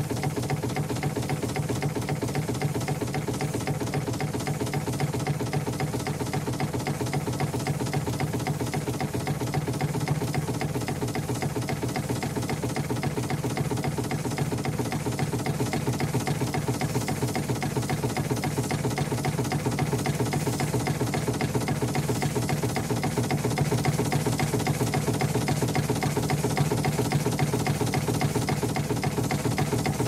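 Steam launch's steam engine running steadily with a fast, even beat.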